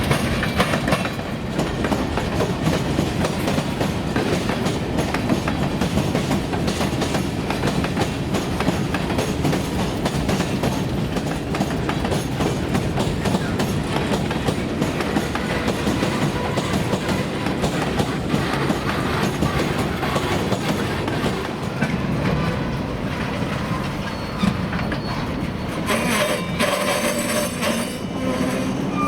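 Freight train cars rolling past, their wheels clattering steadily over the rails, with a harsher, hissier stretch near the end.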